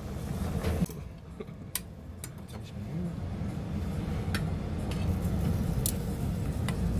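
A steady low rumble with a few sharp metallic clicks, metal tongs knocking against the wire grate of a charcoal grill as pieces of pork skin are laid on it.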